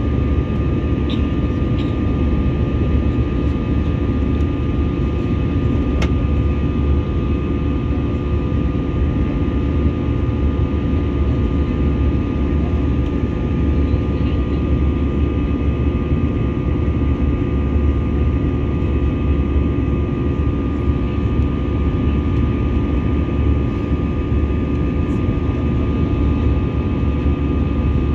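Airliner cabin noise during the climb after takeoff: a steady roar of engines and rushing air, with a few steady whining tones over it.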